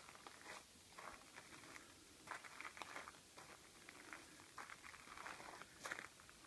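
Faint footsteps crunching on gravel, a soft irregular step every half second or so.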